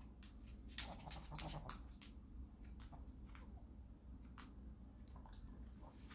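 Irregular light clicks and taps, a cluster of them about a second in and a few more scattered after: a small Chihuahua's claws on a laminate floor as it shifts about.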